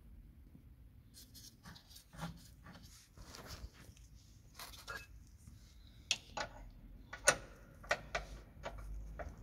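Irregular metallic clicks and knocks of hand tools at the mounting bolt of a car's front lower control arm, as the 19 mm nut and bolt are worked loose, with rustling of handling before them; the sharpest knock comes about seven seconds in.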